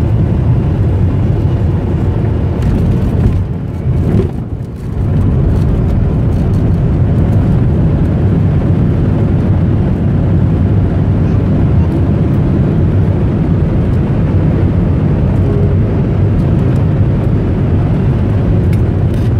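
Cabin noise of a Boeing 737-800 airliner on its landing rollout: a loud, steady low rumble of engines and wheels on the runway, dipping briefly about four seconds in before settling back.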